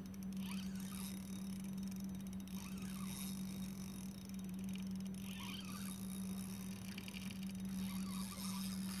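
Spinning reel being wound in short spells, its gears ticking finely, while a fish pulls against the bent rod. A steady low hum runs underneath.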